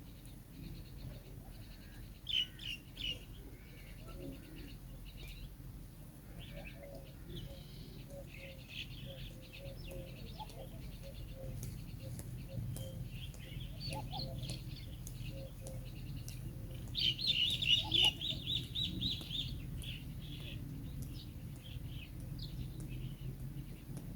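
Small bird chirping in short, high calls, with a fast, loud run of chirps about seventeen seconds in.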